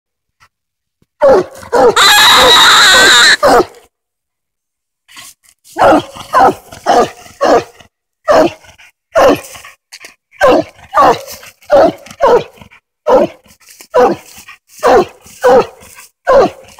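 A coonhound tree-barking up a den tree: the steady barking that tells the hunter the hound has treed its raccoon. After a couple of short barks comes one long, loud drawn-out bay. Then, after a short pause, a run of short chop barks at about two a second.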